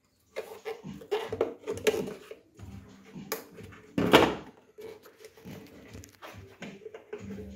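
Hands and a screwdriver working the rubber wiring boot and trim between an Audi A3 8P's tailgate and body: irregular clicks, knocks and rustling of rubber and plastic, with the loudest knock about four seconds in.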